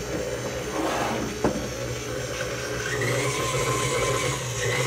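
KitchenAid tilt-head stand mixer running, mixing a yeasted naan dough in its steel bowl, with a steady motor hum. There is a single knock about a second and a half in. About three seconds in, a higher whine rises as the speed lever is moved.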